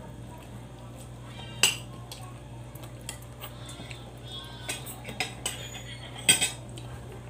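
Utensils and plates clinking on a dinner table during a meal: scattered sharp clinks against the ceramic plates, the loudest about a second and a half in and again about six seconds in, over a low steady hum.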